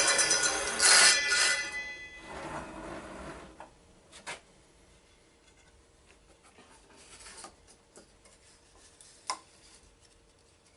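Bosch PPS 7S table saw's motor and blade winding down after a cut, the whine falling in pitch and fading out over the first three seconds or so. A few light clicks and knocks follow.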